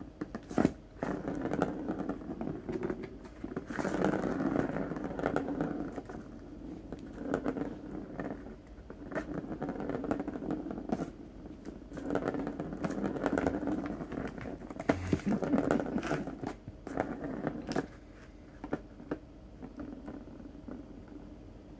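Plastic ball rolling around the circular plastic track of a Turbo ball cat scratcher as a cat bats it, with sharp clicks where the ball is struck. The rolling comes in spurts of a few seconds each and dies down to a low level for the last few seconds.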